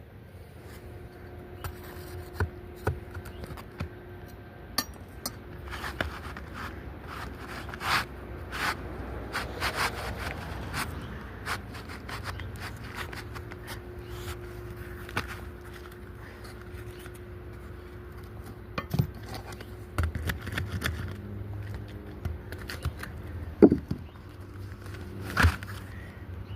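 Asphalt shingles and roofing tools scraping and rubbing as a new shingle is worked in under old, brittle shingle tabs, with scattered sharp knocks, the loudest near the end.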